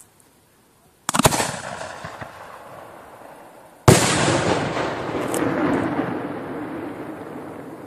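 A 75 mm (3-inch) titanium salute shell fired from a mortar tube. The lift charge goes off with a sharp thump about a second in. Near four seconds the shell bursts in the air with a much louder bang that rumbles and echoes away for several seconds.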